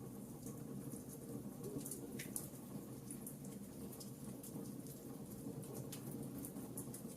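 Wood fire crackling in a fireplace: a steady low rumble of burning with frequent irregular small pops and snaps.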